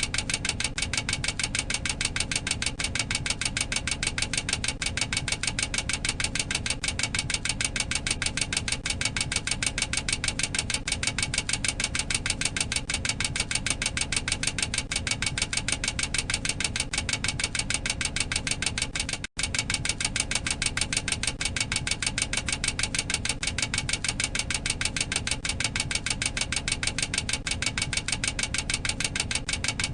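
Boeing 737-800 cockpit overspeed warning: the clacker sounding as a rapid, steady clacking, many clacks a second. It breaks off for an instant about nineteen seconds in, then carries on.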